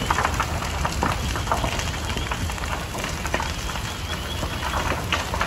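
Large wooden structure fire burning, with irregular crackling and popping over a steady low noise.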